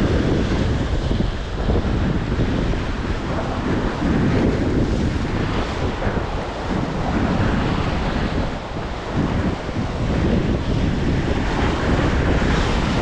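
Wind buffeting the microphone in uneven gusts, over the steady wash of sea waves against the jetty.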